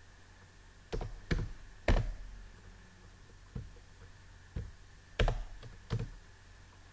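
Computer keyboard keys pressed one at a time while a word is typed: about seven separate clacks, unevenly spaced, a few of them louder than the rest.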